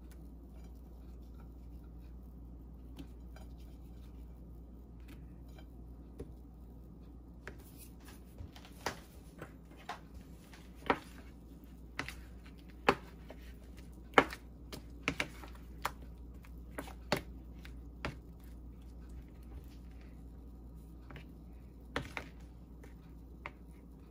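Sharp clicks and taps of a spoon and asparagus spears knocking against a plastic mixing bowl as the spears are dipped and turned in batter, scattered through the middle and a couple more near the end, over a low steady hum.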